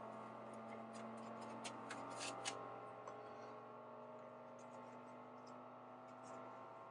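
Qidi X-Plus 3 3D printer running its input shaper calibration: a faint, steady hum of several tones, with a few light ticks about two seconds in. One of the lower tones drops out near the end.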